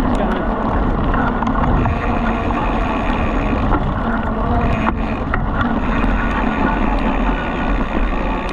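Bicycle rolling fast over a dirt track while towed by two dogs, its tyres making a steady rumble and hiss, with wind noise on the bike-mounted camera's microphone.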